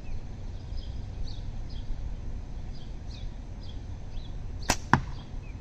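A slingshot shot: a sharp snap as the tapered latex flat bands release an 11 mm steel ball, then a second crack about a quarter second later as the ball strikes downrange. Faint bird chirps and a low outdoor rumble run underneath.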